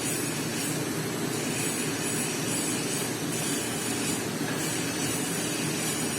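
Steady hissing and buzzing of a TIG welding arc on stainless steel pipe, continuous and even.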